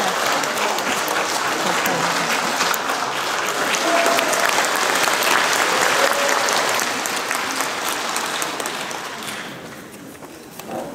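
Audience applauding, the applause dying away near the end.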